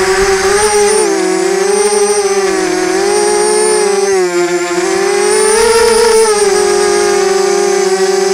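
FPV quadcopter's electric motors and propellers whining loudly at the onboard microphone. The pitch dips and rises several times with the throttle, then holds steady near the end.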